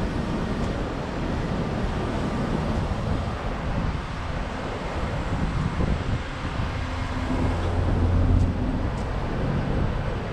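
Wind buffeting the microphone over outdoor street traffic noise, with a vehicle's low engine hum swelling about eight seconds in.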